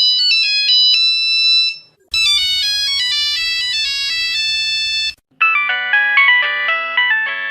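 Nokia phone ringtones played one after another, each a short stepping melody. A high, beeping version ends about two seconds in; after a short gap a brighter, fuller version plays for about three seconds; then, after another short gap, a lower, fuller-sounding version starts.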